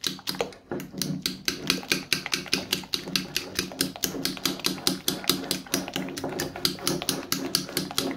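A utensil beating eggs and sour cream in a ceramic plate, clicking rapidly and evenly against the plate, about six strokes a second.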